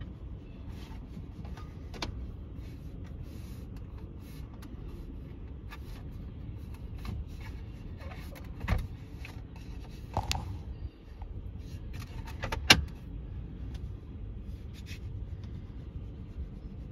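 A freight train of tank cars rolling past: a steady low rumble broken by irregular clicks and clanks from the wheels and cars, with three louder clanks in the second half.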